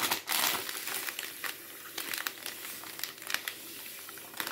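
Plastic bag of granulated sugar crinkling as it is handled and tipped to pour sugar into a pot. The crinkling is densest in the first second, then goes on as scattered crackles.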